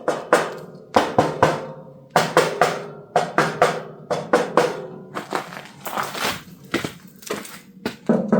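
Steel panels of a CFG MX15RX mini excavator being rapped by hand in quick clusters of sharp knocks, some ringing briefly, to judge how thick the metal is.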